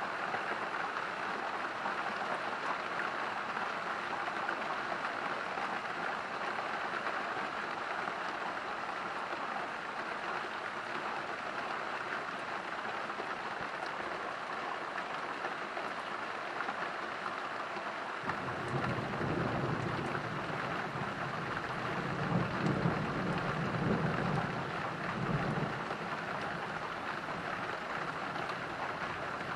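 Steady rain pattering throughout. About two-thirds of the way in, a low roll of thunder rumbles in, swells louder for a few seconds, then dies away.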